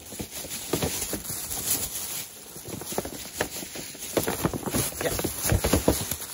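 Plastic shopping bag rustling and crinkling as hands rummage through it and shift boxed toys, in quick irregular crackles with a few knocks.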